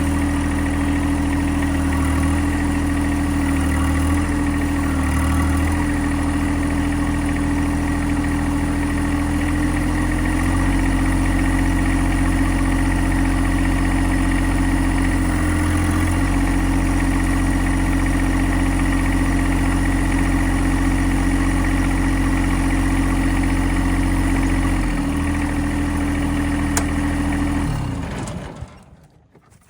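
John Deere 1025R compact tractor's three-cylinder diesel engine running steadily, its pitch stepping up and down a few times, then shutting off and winding down near the end.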